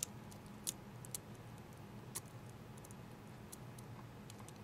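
Small, faint clicks and taps of plastic and metal parts as fingers press the replacement SIM and microSD card module into the opened Samsung Galaxy S3. The clicks are scattered, with the sharpest ones in the first two seconds and a few lighter ones near the end.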